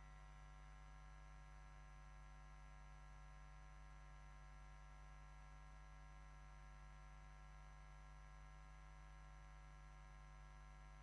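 Near silence: a faint, steady electrical hum with a few constant tones and no other sound.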